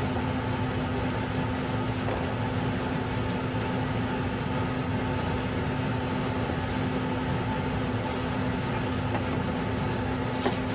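Steady mechanical hum with a constant low tone, and one faint click of a knife on a cutting board near the end.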